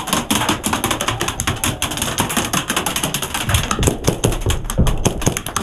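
Airsoft guns firing in rapid bursts: a dense, continuous run of sharp clicks, with a few heavier knocks in the second half.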